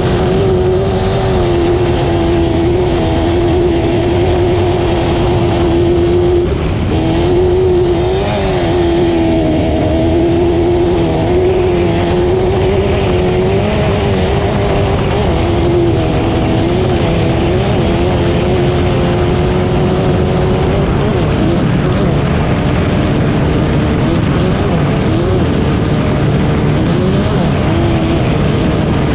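A racing engine held at high revs under load, its pitch mostly steady with brief drops and climbs as the throttle is lifted and reapplied, wavering more in the last third.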